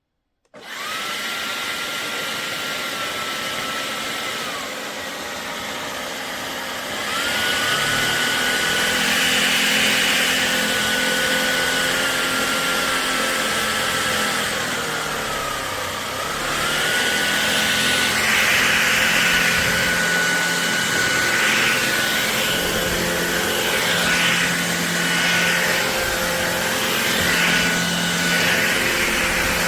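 Shark Detect Clean & Empty cordless stick vacuum switched on about half a second in and running steadily, its motor whine dipping in pitch twice and recovering.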